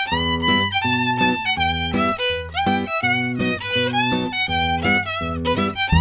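A comic sound-effect tune: a quick, bouncy violin melody over a bass line that changes notes in step with it.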